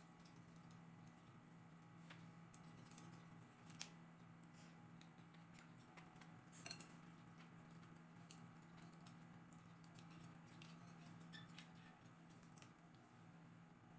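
Faint clicks of metal chopsticks and a spoon against a ceramic noodle bowl while eating, the clearest clatter about halfway through, over a low steady hum.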